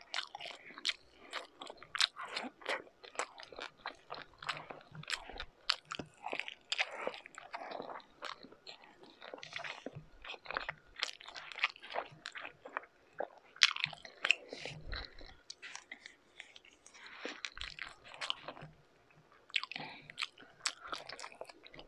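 Close-up eating sounds of a person chewing and biting mouthfuls of rice and marinated grilled meat (beef tapa and pork tocino): a steady run of irregular wet clicks and crunches.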